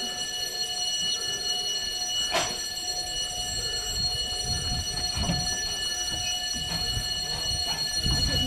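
Steady high warning tone, several pitches held together, while the level crossing gates are swung shut across the road. A sharp clunk about two and a half seconds in, and low rumbling in the second half.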